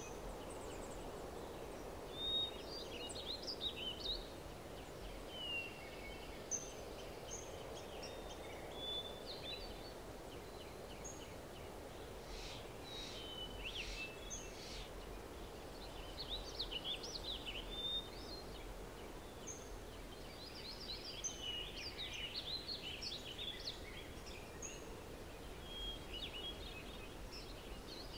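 Small birds chirping and trilling repeatedly over a faint steady background hiss.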